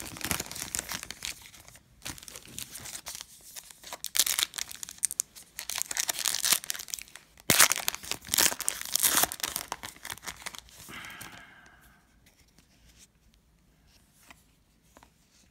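Foil wrapper of a 2017-18 Donruss Optic basketball card pack being torn open and crinkled by hand, in irregular bursts of ripping and crackling with one sharp rip about seven and a half seconds in. It dies down to faint handling sounds about twelve seconds in.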